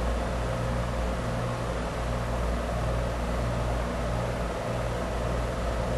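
Steady background hum with a hiss, unchanging throughout, with no speech.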